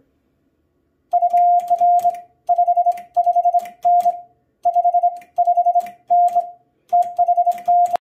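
Morse code sent on a Vibroplex semi-automatic bug key through a Vectronics code practice oscillator: a steady beeping tone keyed into quick strings of dits from the bug's weighted vibrating arm, mixed with longer dahs, starting about a second in. The key's contacts click faintly with each tone.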